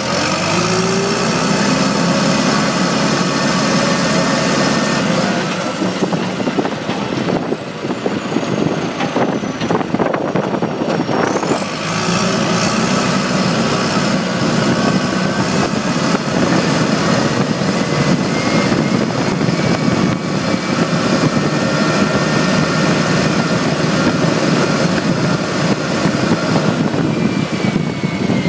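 Tractor engine running steadily while the tractor drives along, heard from the operator's seat, its pitch rising in the first second as it picks up revs.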